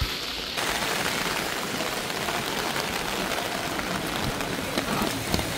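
Background music cuts off about half a second in, giving way to a steady, even hiss of ambient noise with a few faint ticks.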